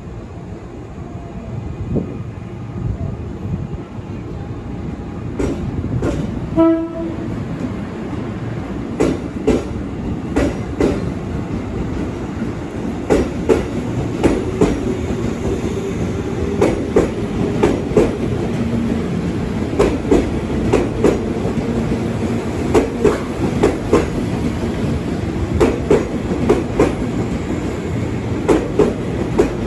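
A train running past, its wheels clicking over the rail joints in a steady clickety-clack over a low rumble that grows louder. A short horn blast sounds about a quarter of the way in.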